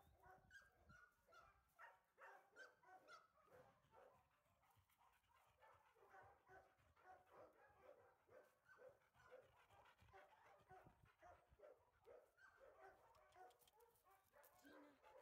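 Faint dog whines and yips, short and many in a row.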